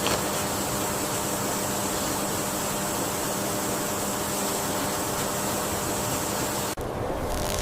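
Steady rushing of flowing water. About seven seconds in it cuts off briefly, and a brighter hiss of water begins.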